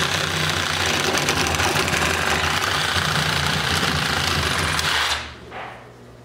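Cordless DeWalt power tool running steadily and loudly for about five seconds, cutting through the tank's PVC plumbing, then stopping.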